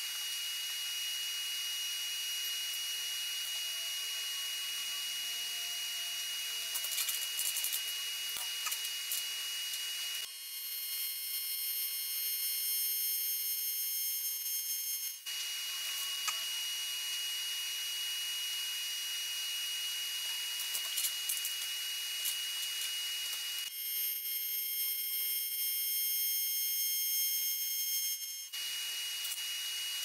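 AC TIG welding arc on aluminium, buzzing in two stretches of about five seconds, about ten seconds in and again near the end. Between them there is a steady high-pitched tone and hiss.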